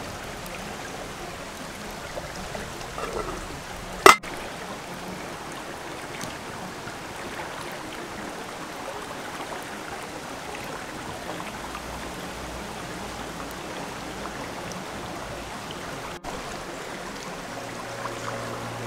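Rocky stream flowing steadily over stones, a constant rushing of water, with one sharp click about four seconds in.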